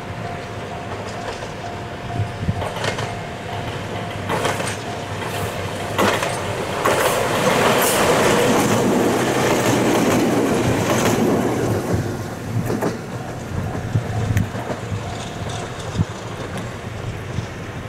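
Ohmi Railway two-car electric train approaching and running past close by, its wheels clacking over rail joints. The running noise swells to a peak as the cars go by, then falls away.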